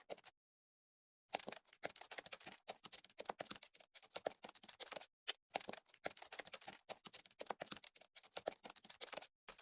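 Faint, quick, irregular clicks and taps, several a second, after a short silence near the start.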